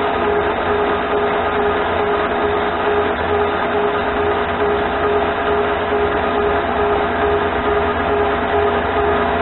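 Mini lathe running steadily, its motor and gear train giving a constant whine, while the cutting tool turns down a brass workpiece and throws chips.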